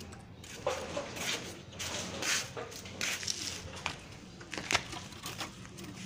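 Caged Asian pied starling giving a run of short, harsh, noisy calls, with a sharp click near the end.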